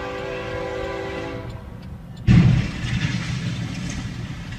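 A train horn holds a long steady chord that fades out about a second and a half in. Shortly after, a sudden loud low thump is followed by continuing rumbling noise.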